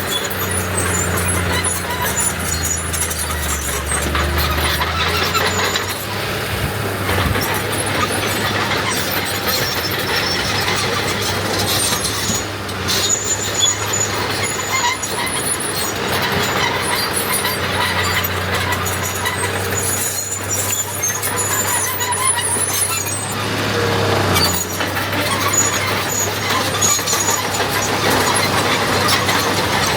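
Heavy diesel earthmoving machinery working: a steady engine hum with repeated high-pitched metallic squeals over it.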